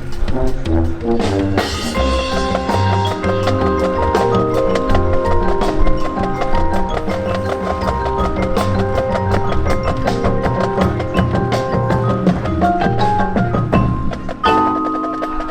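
High school marching band playing its competition show: held brass and wind chords over a fast, steady stream of percussion hits, with a short break and change of texture near the end.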